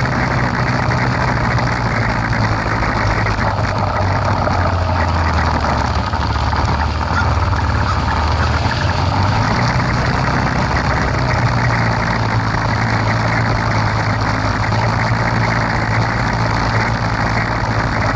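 ATV engine running steadily, its note dipping lower for a few seconds midway and then rising back.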